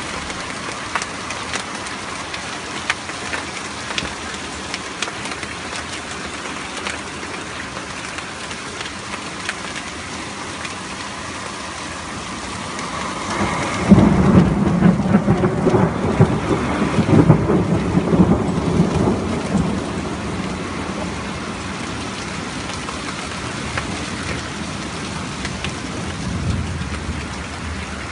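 Steady heavy rain falling on wet tarmac, with scattered sharp ticks of drops close by. About halfway through, a loud clap of thunder breaks into a low rumble that swells several times over about six seconds before dying back under the rain.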